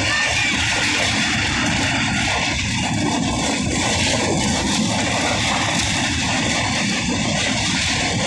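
Passenger train running at speed, heard from inside the coach by an open window: a steady, loud rush of wheel-and-rail clatter and wind noise.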